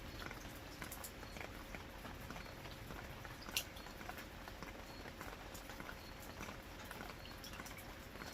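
Steady rain with many scattered drops ticking and pattering, and one sharper tick about three and a half seconds in.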